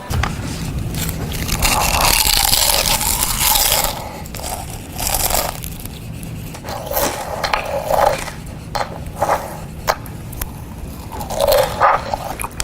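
Loud, irregular crunching and rustling of food being eaten into a megaphone, with the megaphone's steady low hum underneath.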